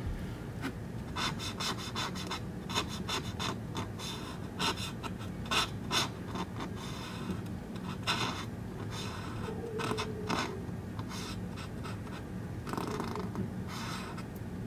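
Close-up, irregular scratching strokes of a micro applicator stirring paint in a small glass paint jar, then dabbing and rubbing paint onto a plastic model locomotive body.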